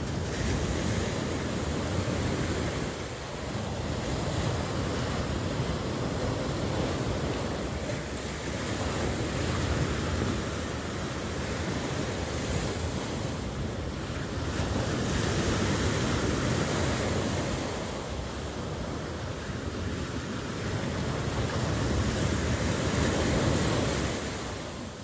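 Ocean surf: a continuous rush of breaking waves that swells and eases every few seconds.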